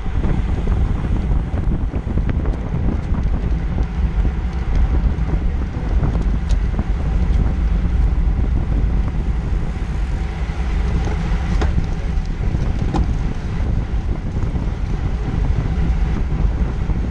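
Wind rushing over a camera microphone on a road bike ridden at about 25 mph: a steady low rumble, with a few faint clicks.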